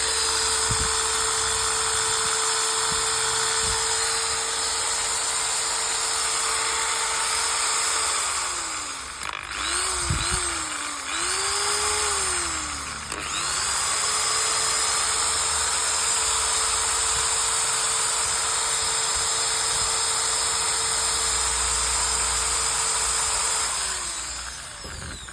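Makita 13 mm electric drill running at a steady high speed with a constant whine. In the middle its pitch dips and climbs back several times as the speed is varied, then steadies again, and near the end it winds down.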